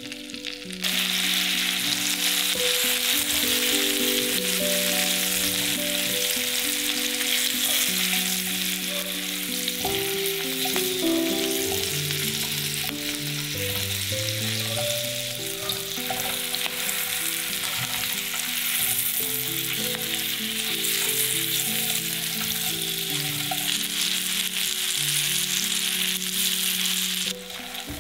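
Food sizzling in a hot frying pan, a steady hiss that starts about a second in and cuts off suddenly near the end. Soft background music with a melody of low notes plays throughout.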